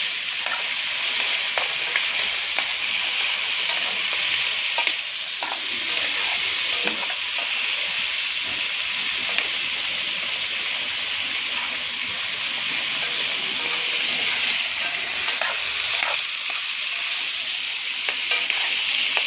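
Doves sautéing in a hot pan with spices and tomato, frying with a steady sizzle, with a few light clicks scattered through it.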